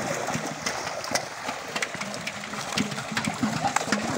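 Many fish thrashing in shallow water crowded inside a drawn fishing net: a dense, continuous churning splash dotted with quick slaps.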